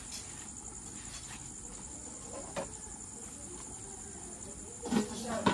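Crickets chirring steadily in a high, even drone, with a faint click in the middle and a couple of louder knocks near the end.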